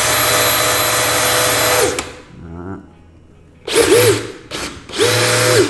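DeWalt 20V XR brushless compact drill running free at full speed with no bit load, a steady high whine that stops about two seconds in. Then come two quick trigger blips and a short half-second run near the end.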